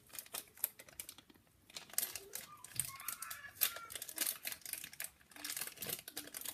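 Plastic packaging being handled and opened: irregular crinkling with many small sharp clicks.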